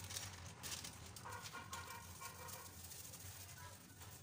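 Faint crinkling of a plastic packet as powdered breading mix is shaken out of it into a small cup, over a low steady hum. A short faint pitched call sounds about a second in.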